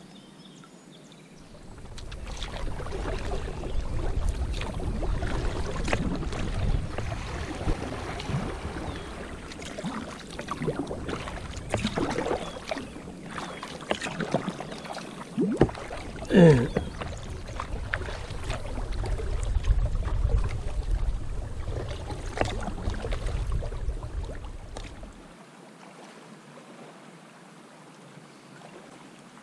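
Kayak paddling: paddle strokes dipping and splashing in the river, with wind buffeting the microphone as a low rumble. A short sound falling in pitch stands out about halfway through, and the wind noise drops away near the end.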